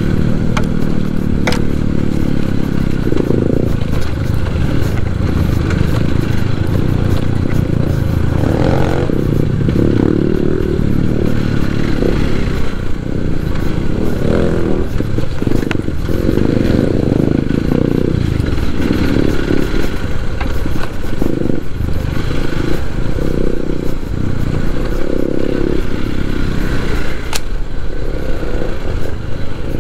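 Hero XPulse 200 4V motorcycle's single-cylinder engine running as the bike is ridden, with a few sharp knocks along the way.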